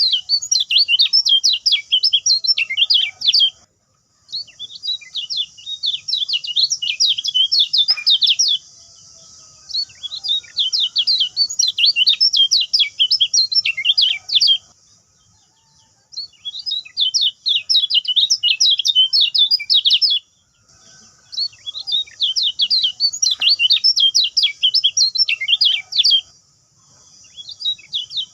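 Kecial kuning songbird singing in bouts of rapid, high, twittering chirps. Each bout lasts three or four seconds, with short pauses between them.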